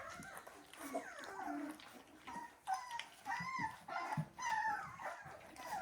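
Three-week-old North American Mastiff puppies whimpering, a series of short high-pitched whines one after another.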